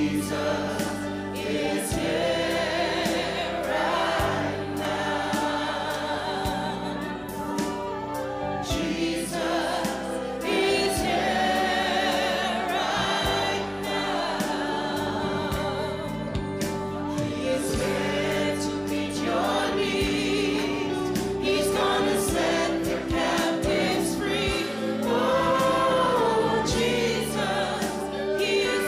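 Gospel worship music: a group of singers performing a song over instrumental backing.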